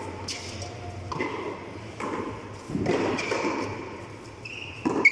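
A few sharp hits of a tennis-type ball being struck by hand and slapping off the concrete walls and floor of a frontón court. The loudest hit comes near the end.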